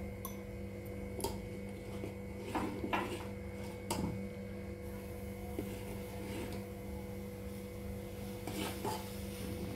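A steel spoon stirring milk in a steel saucepan, giving a few light scrapes and taps against the pot, over a steady hum.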